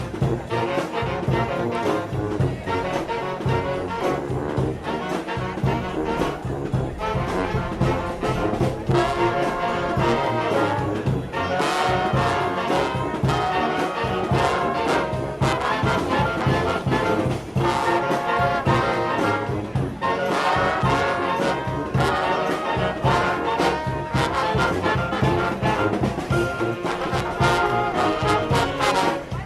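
Brass band music with trombones and trumpets playing, over a steady beat.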